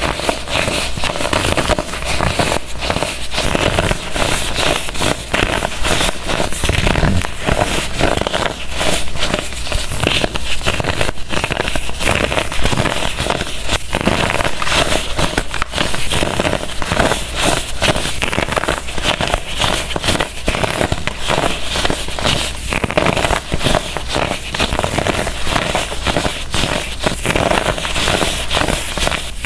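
Dried baking soda blocks being crushed: a dense, unbroken run of crunching and crumbling crackles.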